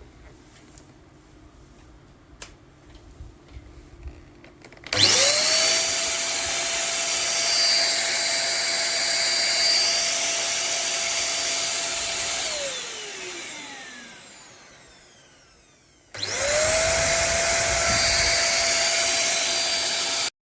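Deerma DX700 handheld vacuum cleaner's 600 W motor starting about five seconds in, its whine rising quickly, then running steadily. It then spins down with a falling whine and is started again near the end. Before the first start there are a few light clicks.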